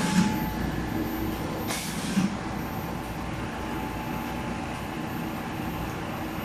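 Steady hum and hiss of running factory machinery, with a thin steady whine. Two short handling noises, each a hissing scrape with a dull thud, come at the start and about two seconds in.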